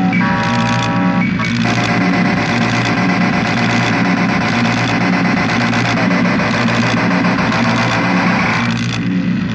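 Loud, dense noise music: layered droning tones over a harsh distorted wash, with a pulsing low rumble underneath. About a second and a half in, a clean stack of held tones gives way to the thicker noisy mass, and near the end the top of the texture thins out.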